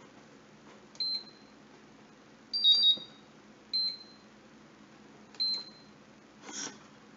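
An iMAX B6 balance charger beeps as its push buttons are pressed while a two-cell lithium-ion charge is set up and started. There are four short, high beeps, each with a button click, and the second is a louder two-tone beep. A brief soft rustle comes near the end.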